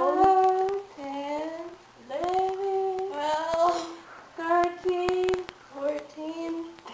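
Girls' voices counting aloud in a sing-song, held notes in short phrases about a second long, with a few sharp claps mixed in.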